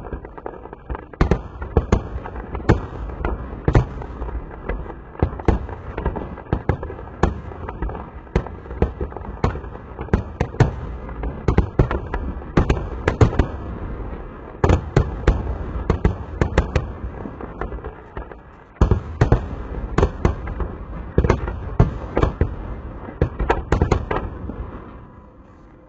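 Fireworks display: aerial shells bursting in quick, irregular succession, two or three sharp bangs a second over a continuous low rumble, easing off near the end.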